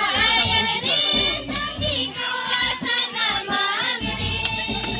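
Girls and young women singing a Mundari welcome song together in chorus, their voices gliding between notes, over a steady rhythmic beat.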